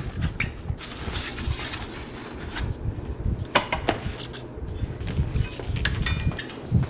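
Unpacking handling noise: foam packing rubbing and a few light knocks and clicks as the stainless steel roaster base and its parts are lifted and moved on the table.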